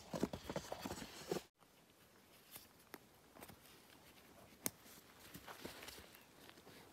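Footsteps and trekking-pole clicks on a dirt and gravel trail, with backpack and phone rustle. About a second and a half in they cut off to a near-quiet outdoor stretch with a few faint scattered ticks.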